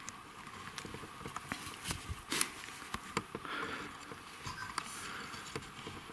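Skis crunching and creaking on snow in slow, irregular steps, with scattered clicks and rustling.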